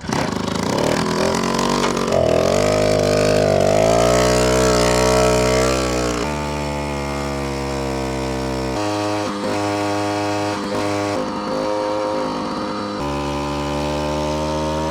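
An old moped's small two-stroke engine running and revving, its pitch rising and falling, then holding steadier with sudden changes in tone every few seconds.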